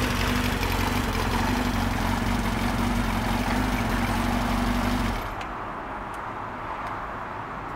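Kawasaki Zephyr 400's air-cooled inline-four, bored up to 470 cc with FCR carburettors and a Nassert R exhaust, idling steadily. About five seconds in it is switched off and the sound cuts out, leaving faint background with a few light ticks.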